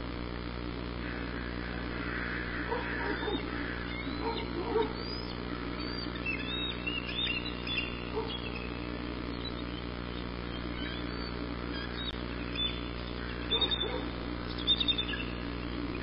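Wild birds calling: short, high chirps and chattering calls in scattered groups, thickest around the middle and again near the end, over a steady low hum.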